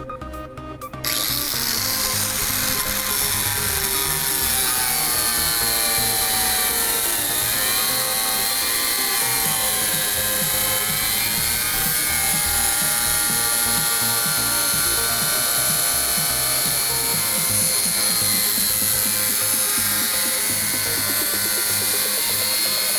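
A power tool starts about a second in and runs steadily while cutting an opening through the bus's side panel, with a high whine whose pitch dips and rises as the load changes. Music plays underneath.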